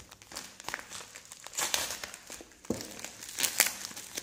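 Plastic courier mailer bag crinkling in the hands as it is handled, in irregular bursts, loudest about three and a half seconds in.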